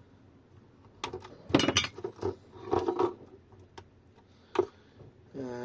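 Handling of an opened e-bike battery pack: a scattering of short clicks and knocks as its plastic case and wiring are moved about. The loudest knocks come about a second and a half in.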